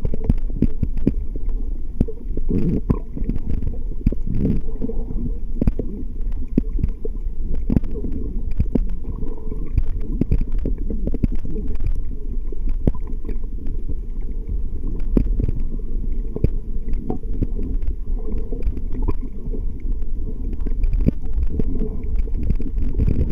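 Muffled underwater sound of water moving around the camera: a steady low rumble with many short clicks scattered throughout.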